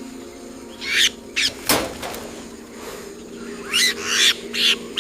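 Bird calls, several short calls in two clusters, over a low steady music drone, with one sudden sharp sound about two seconds in.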